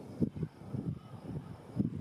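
Wind buffeting the microphone in irregular low gusts.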